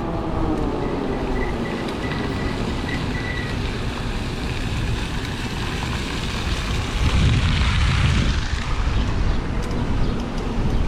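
Wind buffeting the microphone of a rider on a moving e-bike, a dense low rumble that swells louder about seven seconds in for a second or so.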